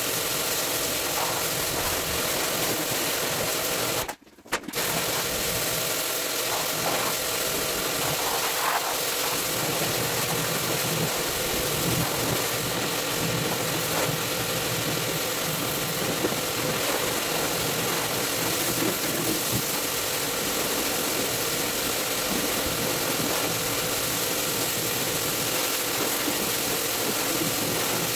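Pressure washer running steadily, its pump motor humming under the hiss of the water spray. The sound cuts out for about half a second roughly four seconds in.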